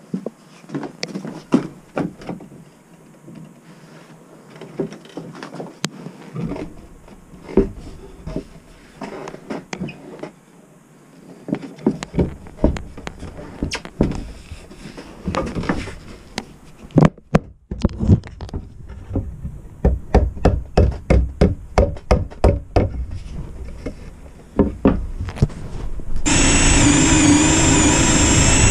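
Rubber mallet knocking plywood panels together onto dowels: scattered single blows at first, then a quick run of blows in the second half. Near the end a power drill starts and runs steadily, drilling into the edge of the board.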